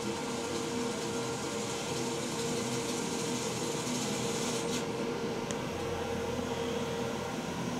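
Sauna's mechanical ventilation fan running: a steady airy whir with a low, even hum.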